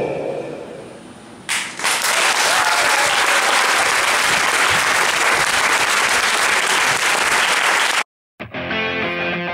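Music fades out, and about a second and a half in an audience breaks into loud, sustained applause. Near the end the applause cuts off abruptly and guitar-led music starts.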